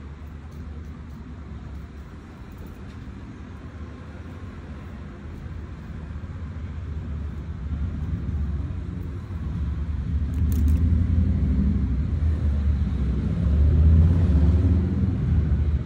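Low rumble of a motor vehicle's engine, growing louder and peaking near the end.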